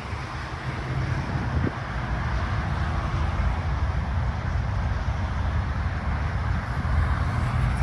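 Wind buffeting the microphone over a steady low rumble of distant road traffic.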